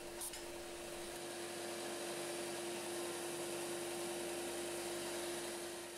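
Workzone benchtop disc sander running steadily while the bandsaw-cut edge of a 3 mm aluminium plate is sanded smooth: one steady tone over an even hiss.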